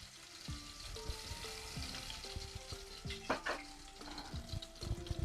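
Ground garlic, ginger and mint sizzling in hot olive oil in a pan, with a spoon knocking and scraping as it is stirred, a few sharper knocks a little past the middle. A simple melody plays softly behind.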